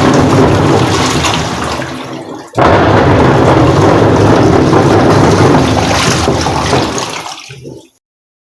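LG washing machine running its wash, with water churning and a loud mechanical rumble in two long strokes. Each stroke fades out as the motor stops, and the second starts about two and a half seconds in. The noise comes from a faulty gearbox, worn out by overloading the drum with clothes.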